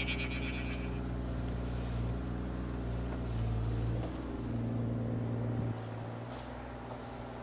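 Bobcat E35i mini excavator's diesel engine running steadily while it digs and swings a loaded bucket. The engine note swells twice under hydraulic load, about halfway through and again for about a second, then settles back near the end.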